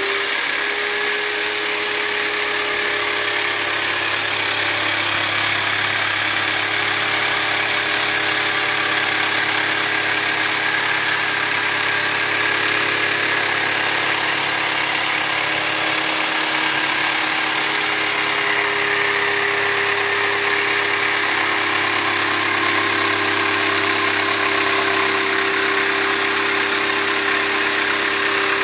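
Ronix jigsaw running steadily as its blade cuts a curved line through a wooden board: a constant motor tone over the rasp of the blade in the wood.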